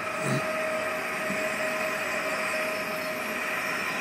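First-generation Pesa Elf electric multiple unit at the platform, its electrical equipment giving a steady whirring hum with a held whine that fades out near the end.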